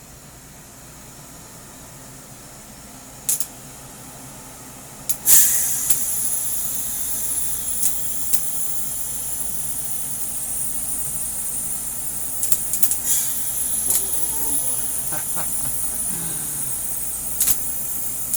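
A sharp click, then about five seconds in a steady high-pitched hiss starts abruptly and keeps going, with a few more clicks and knocks over it.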